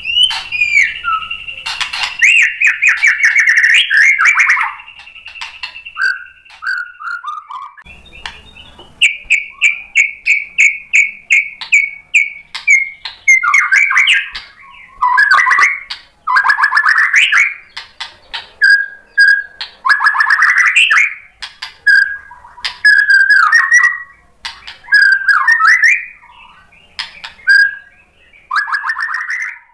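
White-rumped shama (murai batu) singing: quick runs of repeated whistled notes alternating with loud, varied slurred phrases and trills, broken by short pauses. A steady high tone sounds under the song for the first seven seconds or so, then stops.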